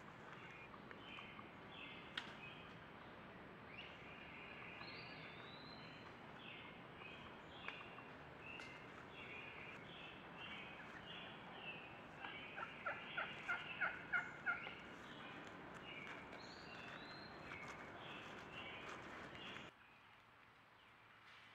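Wild turkey calling: a series of about nine short, evenly spaced notes that grow louder, a little past the middle, over songbird chirps in woodland. The background drops away suddenly near the end.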